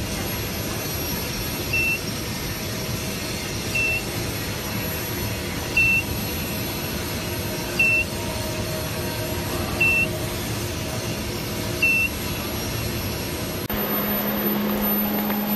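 An electronic beeper gives a short, high beep every two seconds, six in all, over the steady hum of industrial induction heating equipment. Near the end the hum changes to a steadier, lower drone.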